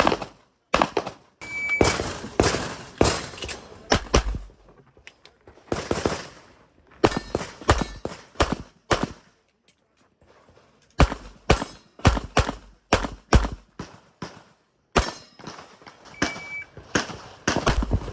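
Handgun shots fired in rapid strings, several shots a second with short pauses between strings, as in IPSC practical-shooting stages. A short high electronic beep sounds twice, about a second and a half in and near the end: the shot timer's start signal.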